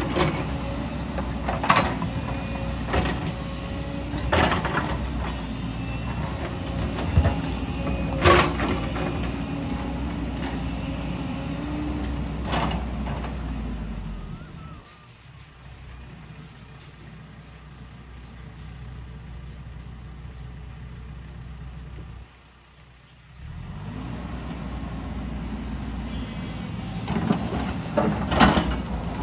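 JCB tracked excavator's diesel engine and hydraulics running under load, with sharp knocks and clanks of the steel bucket against rock and stones. About halfway through it drops much quieter for several seconds, then rises again, with more knocks near the end.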